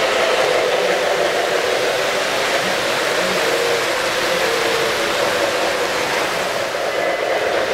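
O-gauge model freight train running past close by on the track: a steady rumble and whir of wheels and motor.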